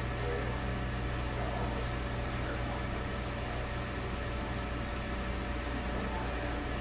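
Steady low hum with an even hiss underneath: room tone, with no other events.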